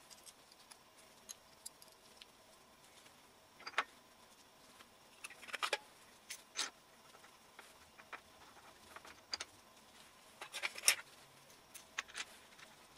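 Light metallic clicks and clinks of small engine parts being handled: a scattered run of sharp taps at uneven intervals, the loudest cluster about eleven seconds in.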